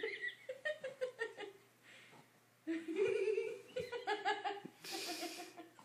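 A woman laughing and giggling in several bursts, the loudest about three seconds in.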